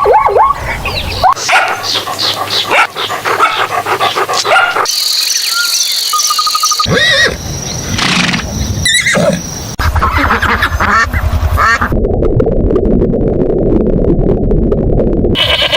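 A run of different animal calls, one short clip after another, each cut off abruptly after two or three seconds, with duck-like quacking near the start.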